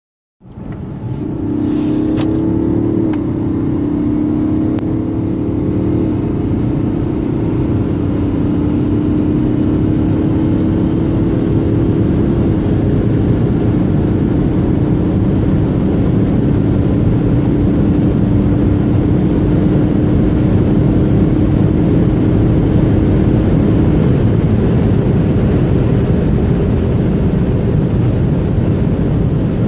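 Cabin sound of a BMW 740d's 3.0-litre inline-six diesel under hard acceleration in an automatic, pulling up to about 200 km/h over heavy road and wind noise. There are a couple of quick upshifts in the first few seconds, and the engine note eases off near the end as the car settles into a high-speed cruise.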